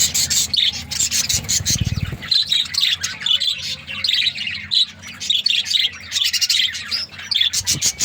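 A flock of budgerigars chattering, a dense mix of rapid warbling chirps and squawks from many birds at once.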